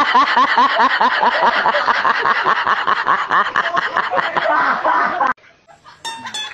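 A person laughing in a rapid, unbroken cackle of about five 'ha' pulses a second, which cuts off suddenly about five seconds in. Music with plucked notes starts near the end.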